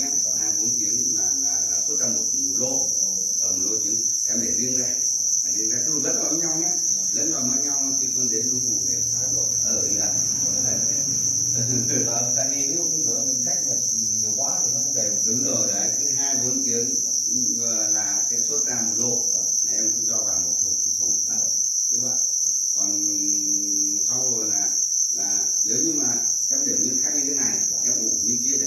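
Dense chorus of farmed black crickets calling, a steady high-pitched trill that never breaks.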